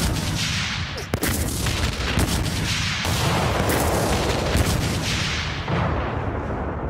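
A series of sound-effect explosions going off one after another, rumbling continuously, with sharp new blasts about every second.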